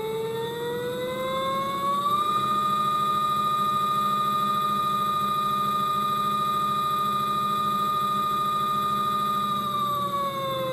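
Modified LG Mini TurboWash direct-drive washer motor spinning with a pitched whine. The whine rises for about two seconds as the rotor spins up, holds steady at its 720 rpm spin speed, then starts to fall near the end as it winds down.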